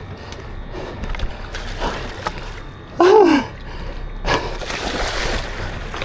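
Water splashing and sloshing against the boat's side as a hooked fish thrashes at the surface and is gaffed. A short vocal exclamation falling in pitch about three seconds in is the loudest sound.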